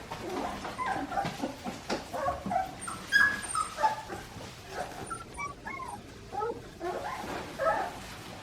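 A litter of young Australian Shepherd puppies whimpering and yipping, many short overlapping squeaky calls, with a sharper, louder yelp about three seconds in.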